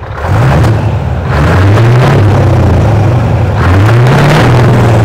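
1997 Scania's turbocharged V8 diesel being revved at a standstill, heard at the exhaust outlet of a pipe that loops back and forth along the frame. The engine picks up about a quarter second in and is blipped higher twice, around a second and a half in and again near four seconds.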